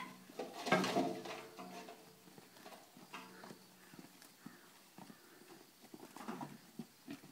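Pigs grunting as they trot out into the yard, with a loud grunt about a second in and another near the end, and scattered clicks of their hooves on the dirt.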